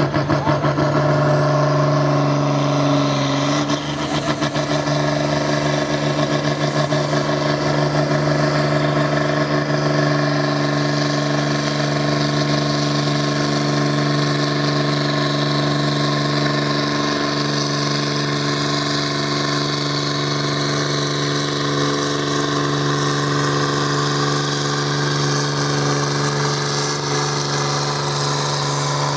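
Volvo BM 2654 tractor's diesel engine running at a steady high pitch under heavy load as it hauls a weight-transfer sled down the pulling track, with a brief dip about four seconds in.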